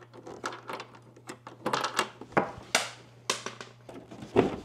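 Irregular clicks, knocks and scraping rustles as a mini-split indoor unit and its copper refrigerant lines are handled, over a faint steady low hum.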